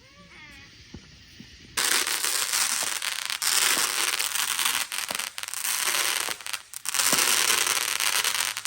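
Fireworks going off: after a quiet start, a loud, dense crackling begins about two seconds in and continues with brief lulls.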